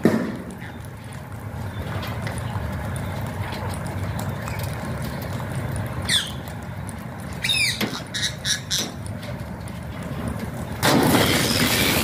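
A flock of Alexandrine parakeets feeding on the ground, giving a few harsh squawks around the middle. About eleven seconds in comes a sudden loud rush of wingbeats and calls as the whole flock takes off.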